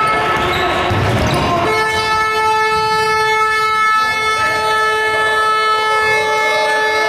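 A basketball bouncing on a gym floor under a long, steady horn-like tone, which becomes louder and fuller about two seconds in and holds.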